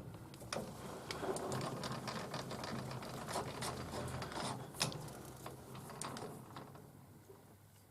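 Small metal lathe running while machining the end of a steel pin, a steady low hum with scattered light clicks and taps, fading away over the last few seconds.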